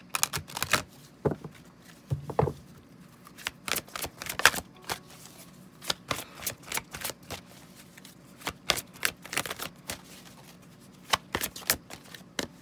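Wisdom of the Oracle deck being shuffled by hand: bursts of quick, sharp card strokes with short pauses between them, as the cards are mixed before one is drawn.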